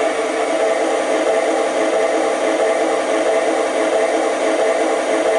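Lionel LionChief Plus RS-3 model diesel locomotive's onboard sound system playing a steady diesel idle, a hum of several even tones, while the engine stands still.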